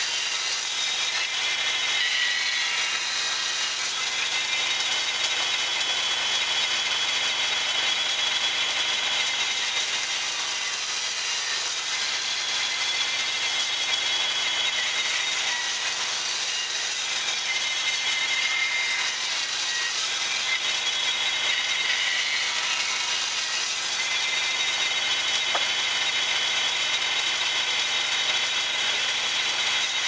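Logosol band sawmill running steadily on its engine while its band blade cuts points on square larch fence posts pushed through by hand. The cutting note shifts now and then as the wood is fed into the blade.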